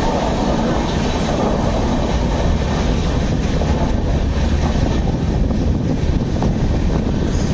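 Indian Railways passenger train running on the rails, a steady rumble and rattle of the coaches heard from the open window of a sleeper coach.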